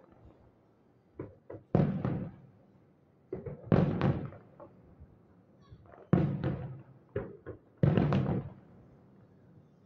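Aerial fireworks shells bursting: four loud booms about two seconds apart, each with a short rumbling echo, with lighter pops just before several of them.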